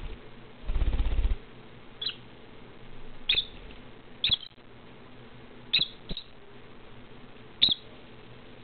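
Peach-faced lovebird giving short, high chirps, six of them spaced about a second apart. About a second in, a brief low rumble is the loudest sound.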